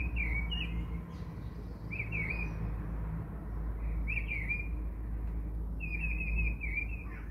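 Birds chirping in short phrases about every two seconds, over the steady low hum of an electric hand mixer whipping cream in a glass bowl.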